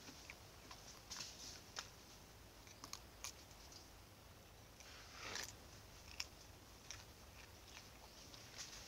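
Young macaque biting and chewing a piece of green fruit: faint, scattered clicks of its bites and chewing, with a short swishing sound about five seconds in.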